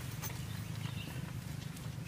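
Faint rustling and a few light taps as sleeping bags are shifted about on an air mattress inside a tent, over a steady low hum.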